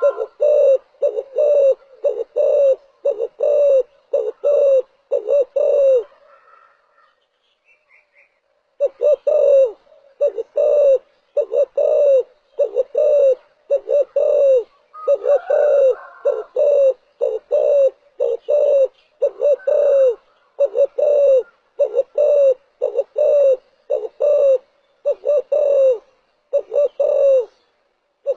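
Spotted dove cooing, its low coo notes repeated about one and a half times a second in a long run, with a gap of a couple of seconds about six seconds in. It is the song played as a lure call to draw wild doves.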